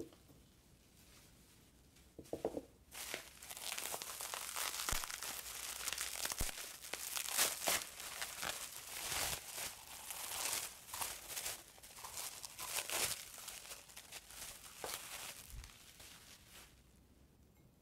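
Bubble wrap crinkling and crackling as a glass cup is unwrapped by hand; the dense crackling starts about three seconds in and dies away near the end.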